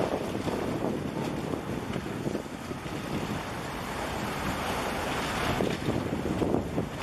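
Wind buffeting the microphone over sea water washing against concrete breakwater blocks, surging louder a few times.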